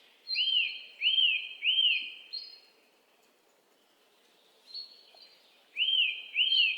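A bird calling in arched chirps that rise and fall: three in quick succession, a pause, then three more near the end, with fainter higher notes alongside.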